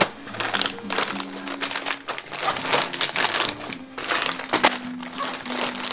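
Rustling and crinkling of plastic bags and belongings being handled and packed into a fabric duffel bag: many quick, irregular handling noises. Soft background music with held notes plays underneath.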